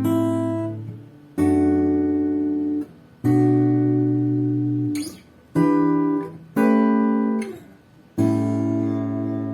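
Acoustic guitar played as a slow series of strummed chords, each struck and left to ring for a second or two before being stopped.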